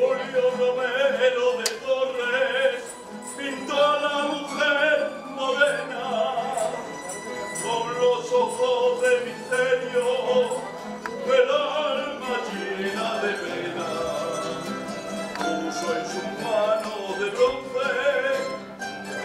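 A Spanish tuna, a student minstrel group, singing to its own accompaniment of guitars and bandurrias.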